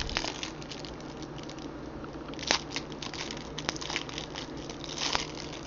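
A small trading card pack being opened by hand: the wrapper crinkles and tears as the cards are handled, with a couple of sharp snaps about halfway through and near the end.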